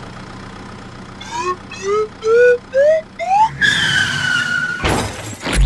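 Cartoon-style sound effects: five short rising whistle-like glides, each pitched higher than the last, then a longer held tone that sinks slightly, then a noisy whoosh near the end.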